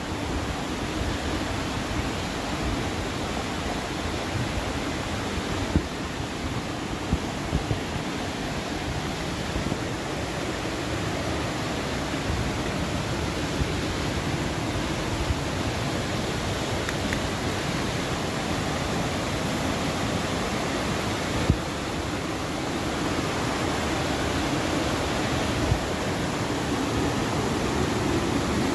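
A mountain stream rushing over rocks and small cascades: a steady roar of water that grows a little louder near the end. A few brief knocks are heard.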